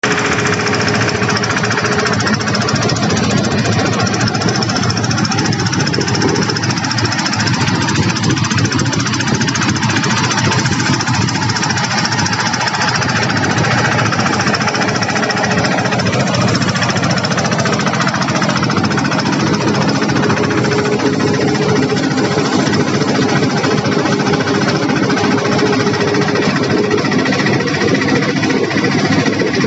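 Engine-driven rice threshing machine running steadily, its motor giving a fast, even chugging.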